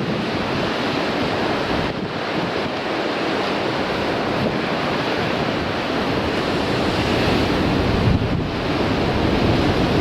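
Sea surf breaking against rocks in a strong wind, with gusts buffeting the microphone: a loud, continuous rush that swells and eases without a break.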